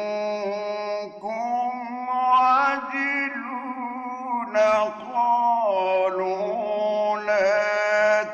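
A man reciting the Quran in the melodic mujawwad style, drawing out long ornamented notes that slide up and down in pitch. The phrases run long, with only brief breaks for breath.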